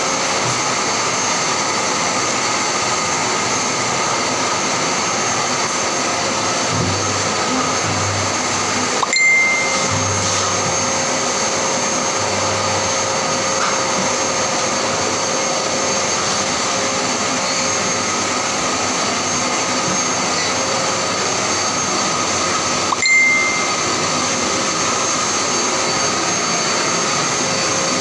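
Steady whirring of an electric motor with a hissing airflow, like a blower or vacuum, holding an even pitch throughout. Two brief high tones come about fourteen seconds apart.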